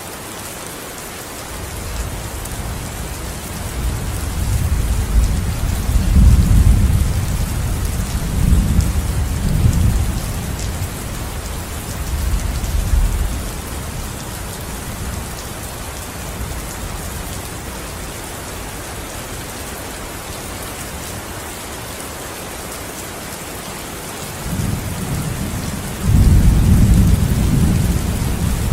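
Steady rain hissing, with long low rolls of thunder: one building a few seconds in and fading away by about halfway, another starting near the end and jumping louder shortly after.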